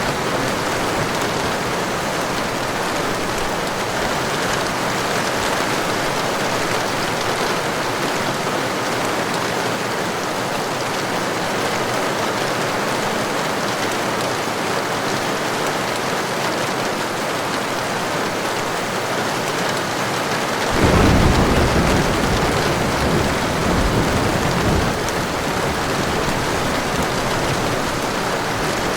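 Steady heavy rain, with a sudden low thunderclap about three-quarters of the way through that rumbles on for about four seconds before fading back into the rain.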